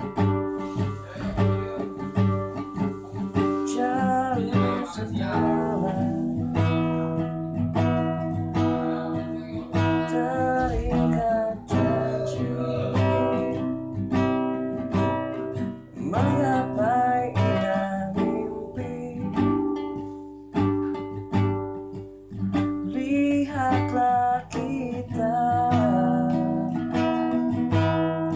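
A man singing a ballad while playing a nylon-string classical guitar, with picked and strummed chords under the voice.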